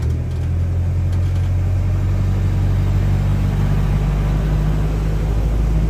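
Engine of an open-sided tour tram running steadily as it rolls along, a low, even hum heard from the passenger benches.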